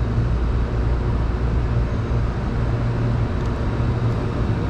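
Large Engineered Air make-up air unit running, its condenser fans giving an even rushing noise over a steady low hum. The fans are running as they should.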